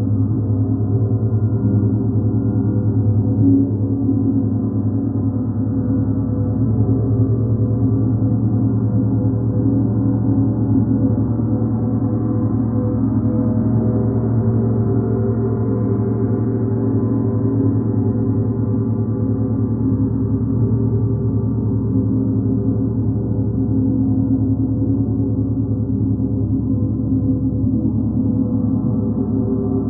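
Large hanging planetary gongs played continuously with a soft felt mallet, building a dense, sustained wash of many overlapping tones that swells a little mid-way.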